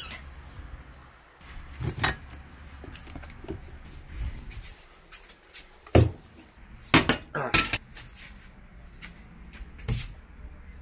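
A string of separate knocks and clatters from kitchen handling: a cupboard door, a plastic tub of frosting set down on the counter, and a microwave door being opened. The sharpest knocks come about six and seven seconds in.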